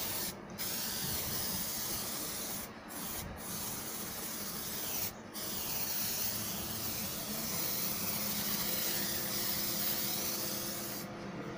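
Aerosol spray adhesive hissing from the can in long bursts, broken by a few short pauses, and stopping near the end.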